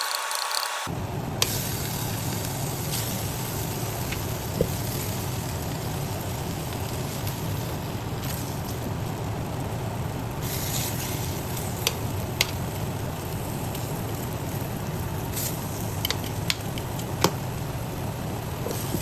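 Food sizzling in a hot frying pan, a steady hiss with a few sharp pops, over a steady low hum.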